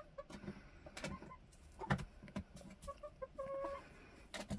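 Backyard laying hens clucking in short notes, with one longer held note about three and a half seconds in. A few sharp taps and scuffs come as the hens move about on the wood-shavings floor.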